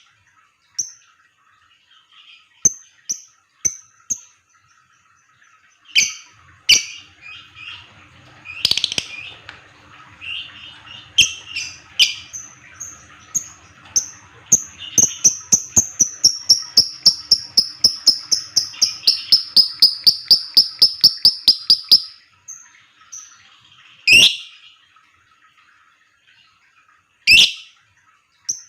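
Fighter lovebird giving the 'ngetik' typing call: a long, rapid run of sharp, evenly spaced clicking chirps, about four a second, in the middle, with loud single shrill chirps scattered before and after.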